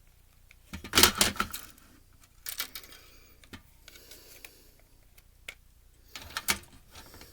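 Irregular clicks and clatters of the Blu-ray player's hard parts and small screws being handled during disassembly, loudest in a cluster about a second in.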